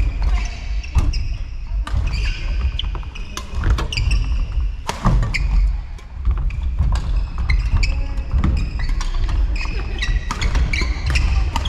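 Badminton rally in a sports hall: repeated sharp cracks of rackets striking the shuttlecock, with short squeaks of shoes on the court floor between shots.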